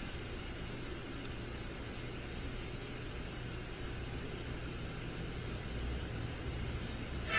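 Low, steady rumble of an approaching Norfolk Southern freight train's diesel locomotives, led by an EMD SD70ACU, heard faintly from far down the line under a steady hiss, swelling slightly near the end.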